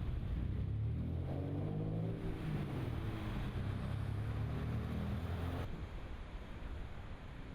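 An engine running steadily, with a rushing, wind-like noise behind it. About two-thirds of the way through, the engine sound cuts off suddenly and only the rushing noise is left.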